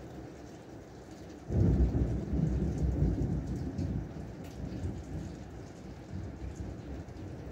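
Heavy rain falling steadily, with a thunderclap about one and a half seconds in: a sudden loud, deep rumble that dies away slowly over the next few seconds.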